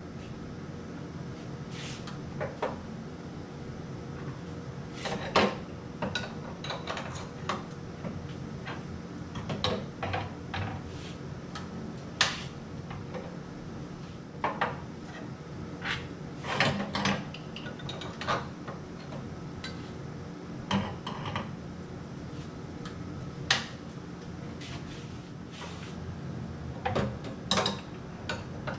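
Steel connecting rods and pistons clinking and knocking as they are loaded into and lifted out of an induction rod heater and pin-fitting fixture: irregular sharp metal clicks every second or so, the loudest about twelve, seventeen and twenty-three seconds in. A steady low hum runs underneath.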